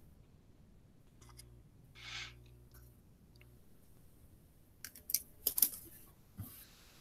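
A quick run of sharp clicks and clatter about five seconds in, like small objects or keys being handled at a desk. About two seconds in there is a brief hiss over a faint low hum.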